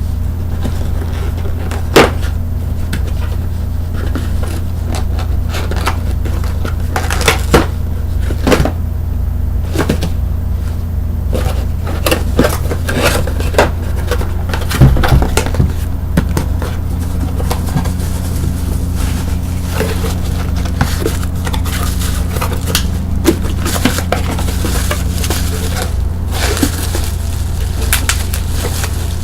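Bubble wrap being handled and popped: scattered, irregular sharp pops and crackles, over a steady low hum.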